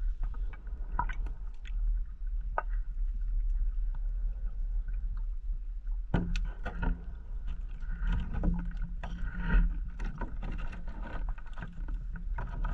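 Underwater sound picked up by a diver's camera: a steady low rumble with scattered clicks, then from about six seconds in a rushing, crackling burst of exhaled scuba bubbles that runs on for several seconds.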